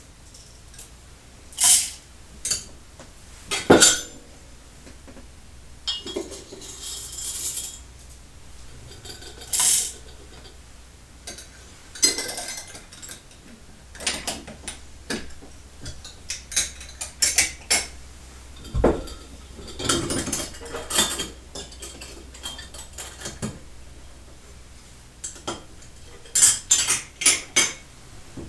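Small hard objects clinking and tapping at irregular intervals as they are handled and set down. There is a sharp knock about four seconds in, a low thud near the middle, and a quick run of clinks near the end.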